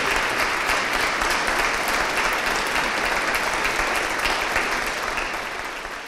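Large audience applauding, a dense steady clatter of many hands clapping that fades away near the end.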